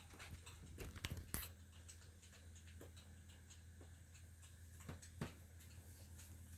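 Near silence: faint scattered clicks over a steady low hum, with a few louder clicks about a second in and again near the five-second mark.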